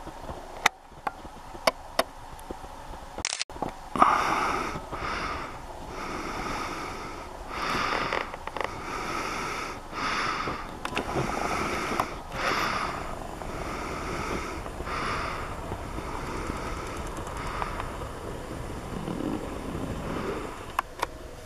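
A few sharp clicks in the first three seconds, then steady breathing close to the microphone, a breath about every second.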